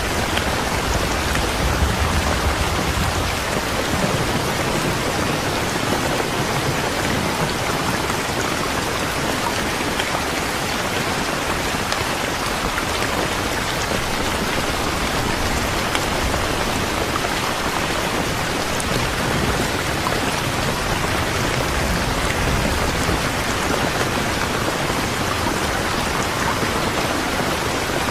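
Steady rain falling, with a low rumble of thunder near the start.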